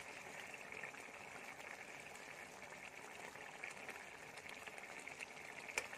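Thick masala gravy with small brinjals simmering in a kadhai: a faint, steady bubbling and crackling, with a single sharp click near the end.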